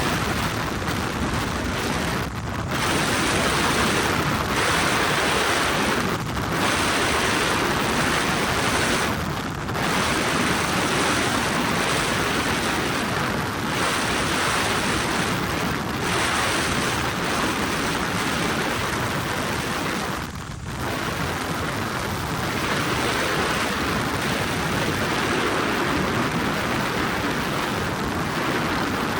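Steady noise of a helicopter in flight, engine and rotor heard from inside the cabin, briefly dipping several times.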